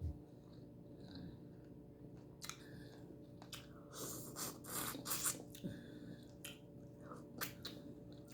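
Close-miked chewing of butter-sautéed, shell-on shrimp: irregular wet smacks and crisp little crunches of shell, busiest and loudest in the middle.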